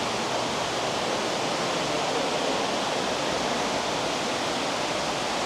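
Steady rushing of running water, an even wash of sound with no breaks.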